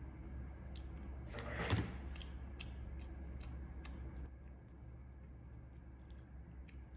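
Eating sounds: small clicks of metal chopsticks picking at eel and rice in a plastic takeaway container, with chewing and one louder brief rustling noise about a second and a half in, over a steady low hum.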